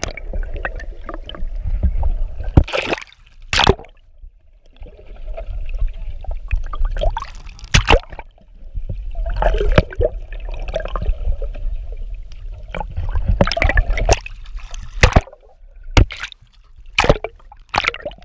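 Water sloshing, gurgling and bubbling around a camera held at the waterline, the sound swelling and dropping as the camera dips in and out of the surface, with many sharp knocks and splashes.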